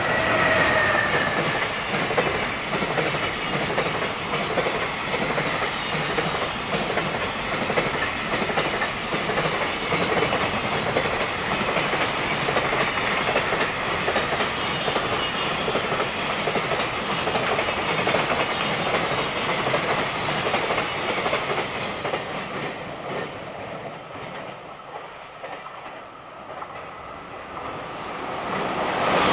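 A freight train of container wagons passing close by: steady clickety-clack of wheels over rail joints, with a falling tone in the first second. The noise dies down about three-quarters of the way through, then builds again near the end.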